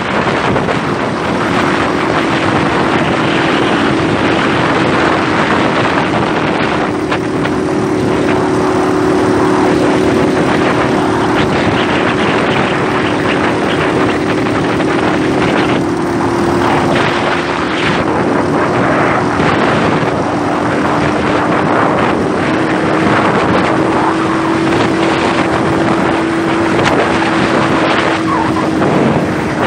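Motorcycle engine running at a steady speed while riding, one even drone throughout, with wind rushing over the microphone.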